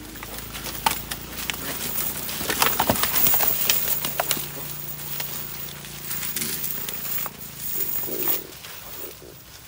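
Large fish thrashing in a cast net on leaves and grass: a dense run of crackling rustles and slaps, busiest a few seconds in, over a faint steady low hum that stops near the end.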